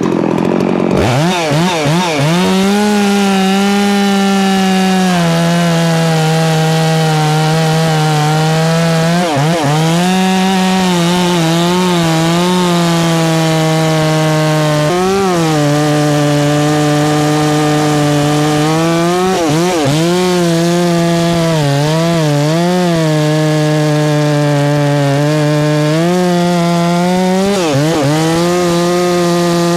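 Large two-stroke chainsaw running at full throttle, cutting through a pecan log. Its pitch dips sharply several times, about a second in, then near 10, 15, 20, 22 and 28 seconds, and recovers each time as the chain bogs down in the very hard wood.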